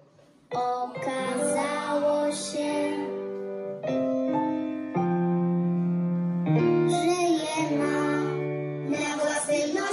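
A song with singing over piano or keyboard accompaniment. It starts about half a second in, after a brief pause, and moves through long held notes.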